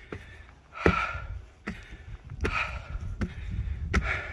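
Footsteps climbing a flight of stair treads: five footfalls, a little under a second apart.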